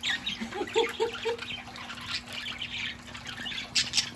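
Budgerigars splashing in a small trickling water fountain, with quick, scattered high chirps and splashes over a faint steady hum.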